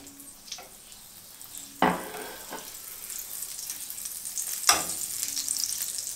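Butter melting and sizzling in hot oil in a frying pan. The sizzle builds steadily from about two seconds in as the fat heats, with two sharp metal clinks about two seconds in and near the end.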